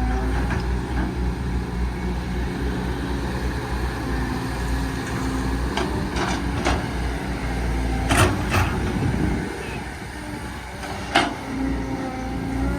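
Caterpillar 315 DL hydraulic excavator's diesel engine running steadily, with a handful of sharp knocks and clanks during loading about six, eight and eleven seconds in. The engine eases off briefly just before the last knock.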